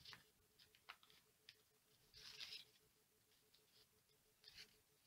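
Faint handling noises: a few small clicks and a short scrape about two seconds in, as a servo is pushed into a tight-fitting pocket in a foam rudder.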